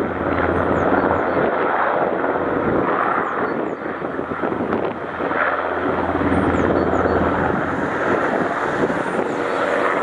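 NH90 helicopter lifting away from a low hover, its main rotor and twin turbine engines running steadily at high power, with a deep rotor thrum that eases about halfway through.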